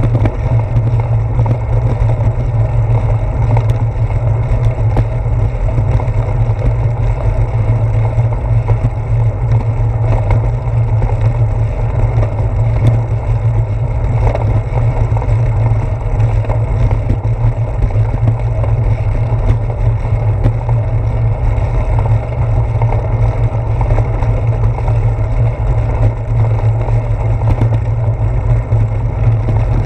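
Steady low rumble of wind and road vibration from a bicycle rolling over a brick-paved street, picked up by a handlebar-mounted GoPro.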